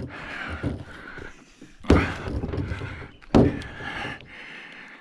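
Two heavy thuds about a second and a half apart, over scraping and rustling as a thick copper power cable is cut and handled.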